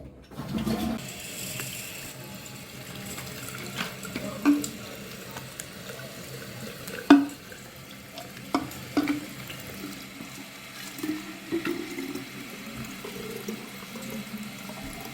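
Tap water running into a water bottle, with a few sharp knocks or clicks along the way, the loudest about seven seconds in.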